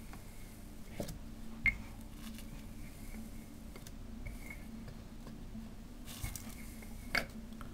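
Wooden rolling pin pressed and rolled lightly over soft dough on a plastic-wrapped wooden board: a few soft knocks, about a second in, near two seconds and near the end, over a low steady hum.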